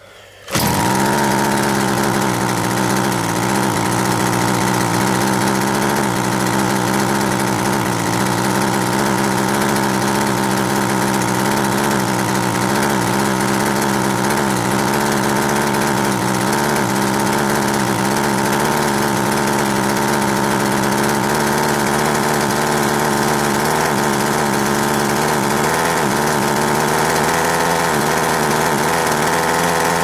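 McCulloch Mac 441 two-stroke chainsaw engine, freshly fitted with a new carburettor diaphragm, comes in abruptly about half a second in and then runs steadily at high revs. The revs stay up: the owner could not get the engine to come down off high revs.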